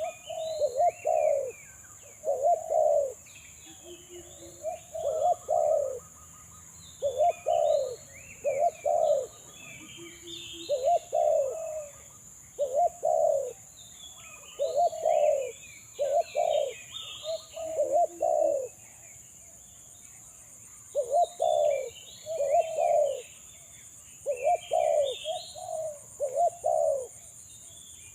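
Decoy spotted dove cooing again and again, in short phrases of two or three coos roughly every two seconds. Small birds chirp higher up, over a steady high insect hiss.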